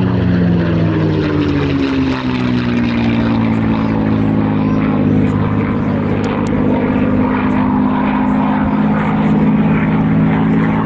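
P-51D Mustang's Packard Merlin V12 engine running as the fighter flies past. Its pitch falls over the first few seconds as it goes by, then holds steady.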